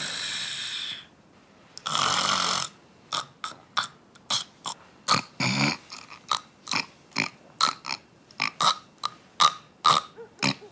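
A woman snoring loudly: two long snores of about a second each, then a quick run of short snorts, about three a second.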